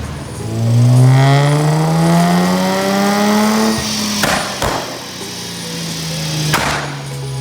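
Nissan 350Z's 3.5-litre V6 revving up steadily under load on a dyno, then backing off about four seconds in, with three sharp exhaust bangs from its flame-map tune as the revs fall.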